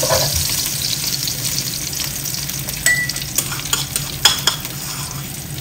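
Hot oil sizzling in a nonstick wok as a spatula stirs chopped herbs and garlic through it. The sizzle eases off a little, and from about three seconds in the spatula gives a few light taps and scrapes against the pan.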